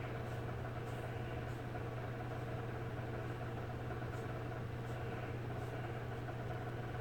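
Steady low hum with an even background hiss.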